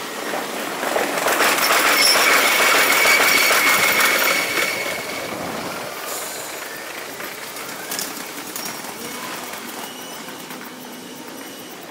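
A Kintetsu electric train running past on the tracks, sped up to five times normal speed: a rushing rumble and clatter that swells for the first few seconds, carries a steady high squeal from the wheels at its loudest, then fades away.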